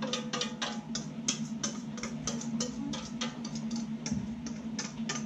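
A utensil scraping and clicking against the inside of a stainless steel mixing bowl as runny chocolate cake batter is scraped into a cake tin: a run of quick, irregular clicks, several a second.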